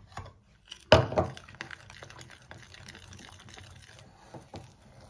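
Metal spoon stirring fermented apple juice into flour in a glass bowl, mixing an apple levain: a sharp knock about a second in, then many light clicks and scrapes of the spoon against the glass over a wet stirring sound.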